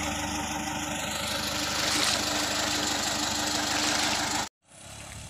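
Pickup truck engine running steadily with a low hum, growing a little louder about two seconds in; the sound cuts off abruptly near the end.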